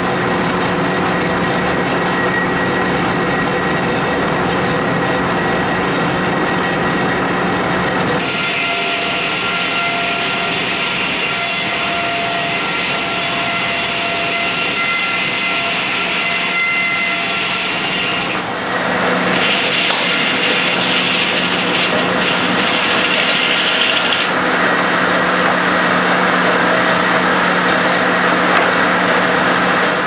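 The double-bladed circular headsaw of an old sawmill running and ripping a log on the carriage: a steady whine with the rasp of the blade through the wood. The sound shifts abruptly about eight seconds in, and twice more later.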